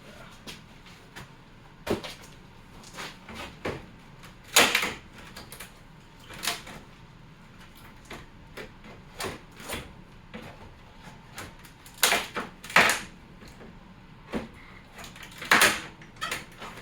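Irregular knocks, creaks and scrapes of a brad-nailed wooden box being worked apart by hand and tool. The loudest knocks come about four and a half seconds in, twice around twelve to thirteen seconds in, and once more near the end.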